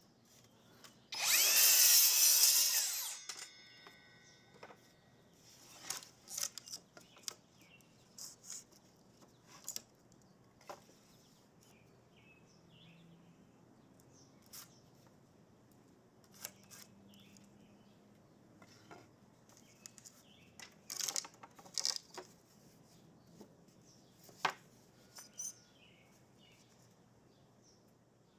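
Power drill running in one burst of about two seconds, its pitch bending as it goes. Scattered light clicks and knocks follow.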